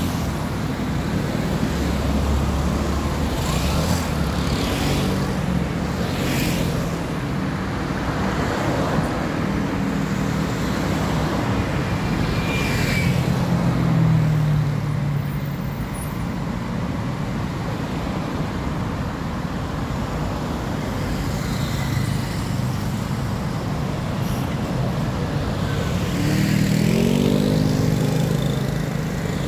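Busy highway traffic going past close by: a steady road hum with cars and trucks passing one after another in swooshes. Near the end a single engine rises and then falls in pitch as it goes past.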